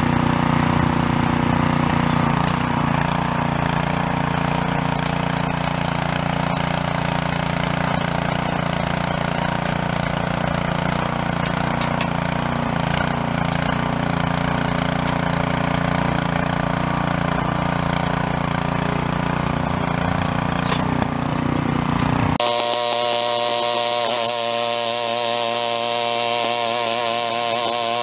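A small engine running steadily. About three quarters of the way through it cuts abruptly to a different, higher-pitched engine sound whose pitch wavers.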